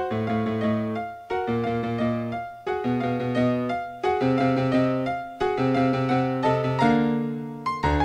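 Background piano music: slow chords struck about every second and a half over a low bass note, each one ringing and fading before the next.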